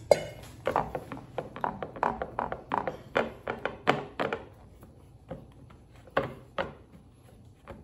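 Hands pressing and patting a crumbly butter-and-flour crust down into a glass baking dish: a quick, irregular run of dull taps and thumps for about four seconds, then a few scattered ones.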